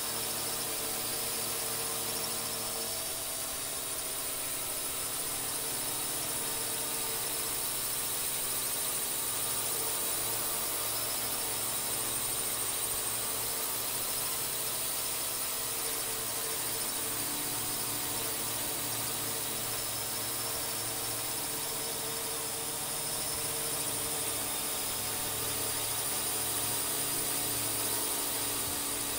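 Quadcopter drone's motors and propellers whining steadily, a constant hiss with a few faint tones that drift slightly in pitch.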